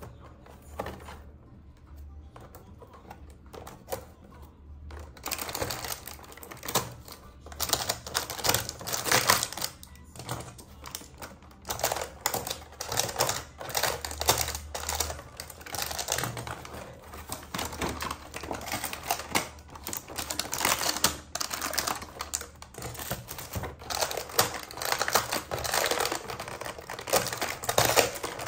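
Dense, rapid clicking and crinkling from hands unpacking a calendar's packaging and small plastic toys. It is faint at first and gets busier and louder about five seconds in.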